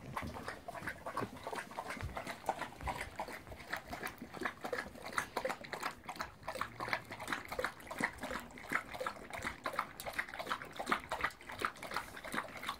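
Two Bernese mountain dogs lapping water together from a metal bowl: a fast, steady run of wet laps.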